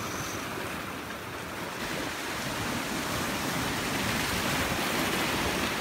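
Sea surf washing over rocks, a steady rush of waves that grows a little louder after about two seconds.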